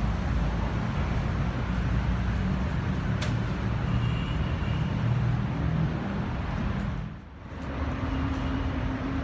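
Steady road-traffic rumble from city streets, dipping briefly about seven seconds in, with a low steady hum after the dip.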